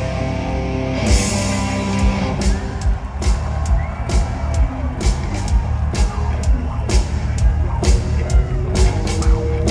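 Live rock band playing loud: held electric guitar chords, a cymbal crash about a second in, then a steady drum beat of about two hits a second under the guitars.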